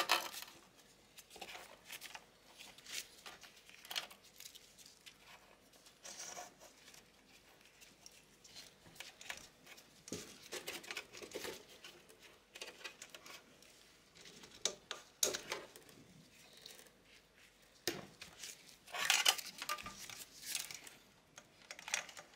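Irregular rustling and light clicks of cables in braided sleeving being handled and pulled by gloved hands, with a sharp snap at the start and a louder bout of rustling near the end.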